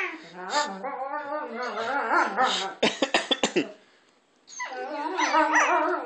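Two Alaskan Malamutes 'talking' at each other in play: wavering, howl-like moans and yips that rise and fall in pitch. About halfway through they break off for a quick run of sharp clicks and a brief hush, then the moaning starts again.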